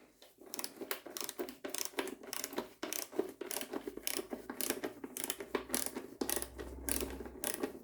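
Socket ratchet clicking in quick, uneven runs as it works the 10mm headlamp bolts on a motorcycle.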